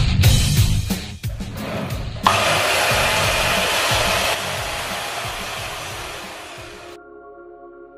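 Electric sliding mitre saw switched on about two seconds in, its motor and spinning blade running loud and steady. The sound steps down about halfway through and fades as the blade winds down, then stops abruptly near the end.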